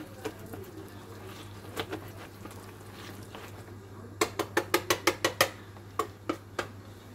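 Wire whisk working thick, wet yeast dough in a plastic bowl. About four seconds in, a quick run of about eight sharp clicks, the whisk knocking against the bowl, followed by three more spaced clicks.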